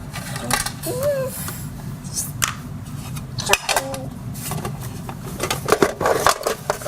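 Light clicks and clatter of plastic toy kitchen dishes and toy food being handled, irregular and scattered, over a steady low hum.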